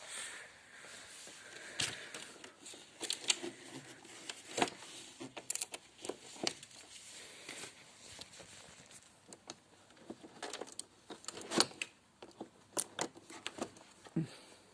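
Irregular clicks and knocks of hands and tools working on a car battery terminal as the battery is reconnected, the terminal left loosely seated rather than tightened.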